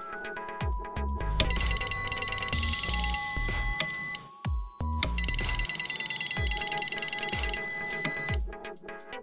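Microzone MC6C transmitter's electronic beeper giving a rapid run of high-pitched beeps that ends in a long steady beep, twice over. The beeps come as the trim is stepped while setting the centre point. Background electronic music plays underneath.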